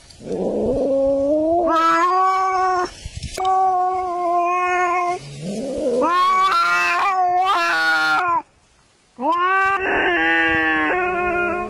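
Domestic cats caterwauling: four long, drawn-out, wavering yowls with short breaks between them, the warning yowl of cats squaring off over territory.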